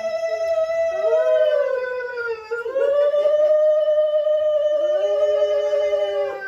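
A dog howling: long, steady held howls that dip and break off briefly about two and a half seconds in, then hold again, with a second, lower howl joining near the end.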